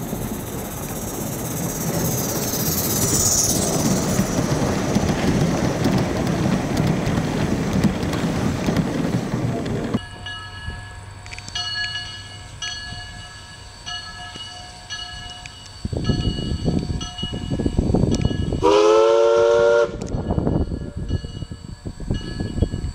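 A small steam locomotive working past with heavy low exhaust puffs, then one short blast of its steam whistle, about a second long, near the end. Before that, for the first part, there is a steady loud rushing noise that swells.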